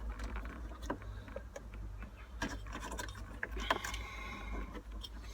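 Small plastic clicks and light rattles of wiring connectors and trim being handled and pushed into place, the sharpest click about two thirds of the way in, over a low steady hum.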